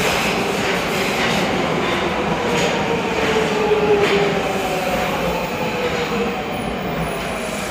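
Nagoya Municipal Subway Meijō Line train, a 2000-series electric multiple unit, running past the platform: a steady rumble of wheels on rail with a faint whine that slowly falls in pitch.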